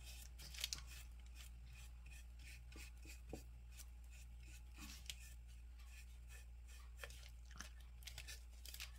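Faint soft rubbing and scattered light ticks of a small paintbrush dabbing decoupage glue over a paper napkin cut-out on a wooden birdhouse, over a low steady hum.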